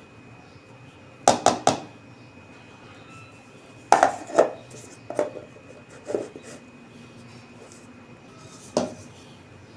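Serving spoon knocking against a steel-lined insulated casserole, then the casserole's plastic lid being set on and pressed down: sharp clinks and clicks, three quick ones about a second in, a cluster near the middle and a few single knocks after.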